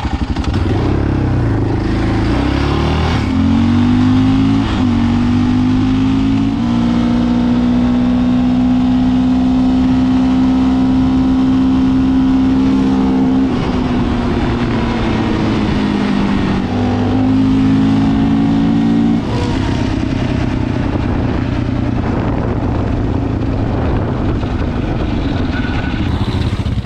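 Single-cylinder 700 cc sport quad engine accelerating hard through the gears, its pitch climbing and dropping at each shift, then held high at speed for several seconds. It eases off, pulls through a few more shifts, and drops away suddenly about two-thirds of the way in, running on more roughly after.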